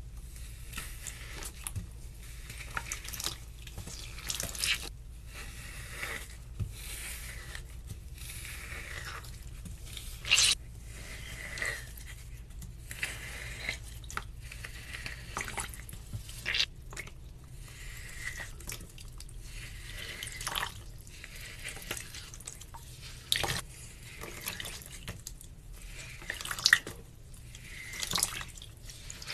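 Wet floral foam being crumbled and squeezed by hand: a continuous run of small irregular crackles and squishing with dripping water, broken by a few louder sharp snaps.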